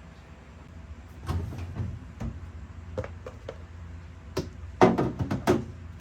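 Irregular knocks and clatters of food containers and items being handled and set down on refrigerator shelves, the loudest cluster near the end, over a steady low hum.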